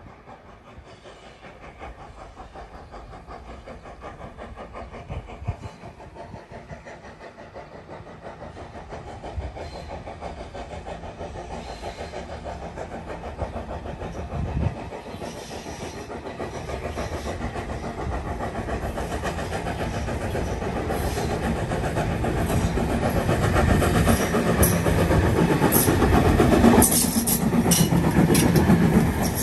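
Steam tank locomotive hauling coaches, approaching from a distance with its chuffing and running noise growing steadily louder, then passing close by near the end with a hiss of steam escaping low down.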